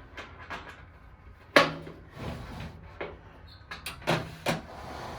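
Sharp knocks and clanks of metal patio-heater parts being handled while screws are tightened: a loud one about a second and a half in, then three more close together near the end, with light clicks between.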